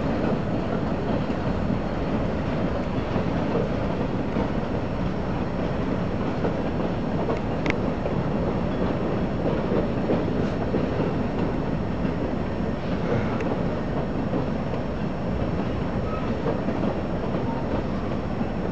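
Coal train cars rolling past at a grade crossing: a steady, continuous rumble of steel wheels on the rails.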